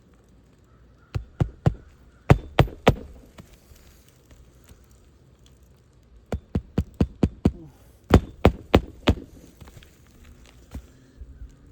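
Hammer nailing a replacement asphalt shingle onto a roof: sharp blows in quick runs of three to six, with pauses between the runs.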